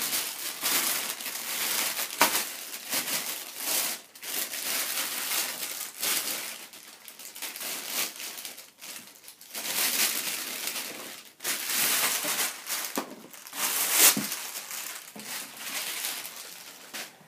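Clear plastic wrapping crinkling and rustling in irregular bursts as hands pull it off a hand air pump.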